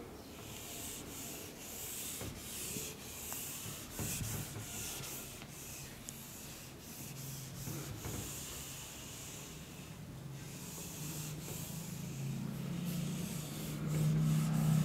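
A sponge eraser rubbing across a whiteboard in quick back-and-forth wiping strokes, about two a second. A low hum builds in the second half and is loudest near the end.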